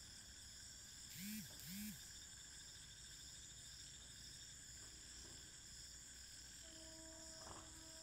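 Near silence: a faint steady high-pitched hiss, broken about a second in by two short rising-and-falling tones, with a faint steady tone near the end.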